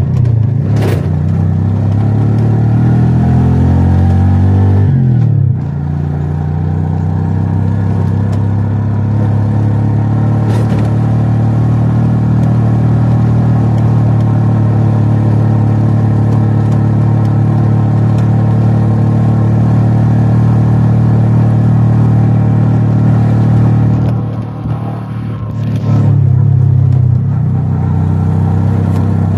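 A vehicle's engine running while driving. The revs climb over the first five seconds, fall away suddenly at about five and a half seconds as it changes gear, then hold steady. They dip and pick up again near the end.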